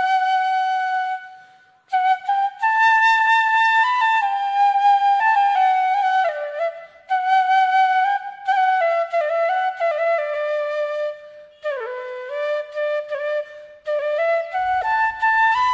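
Background music: a solo flute melody, one line moving in steps with a few downward pitch slides and short breaks between phrases.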